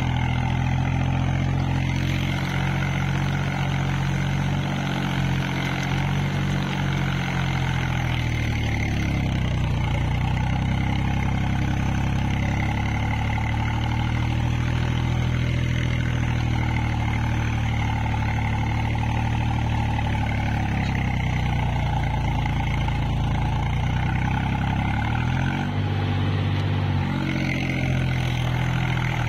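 Swaraj 735 FE tractor's three-cylinder diesel engine running steadily, heard close from the driver's seat. Its speed sags and picks up again twice, about nine seconds in and near the end.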